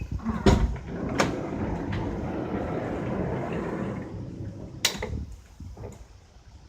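A car's sliding door running along its rail for about three seconds, with two clicks as it starts to move and a sharp latch clunk as it catches at the end of its travel.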